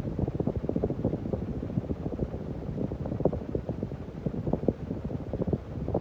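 Hunter Low Profile II 52-inch ceiling fan running, its downdraft buffeting the microphone held close beneath it with uneven, gusty wind rumble.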